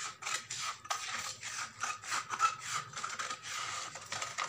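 Scissors cutting through folded paper along a drawn pattern line, a steady run of snips at about three or four a second.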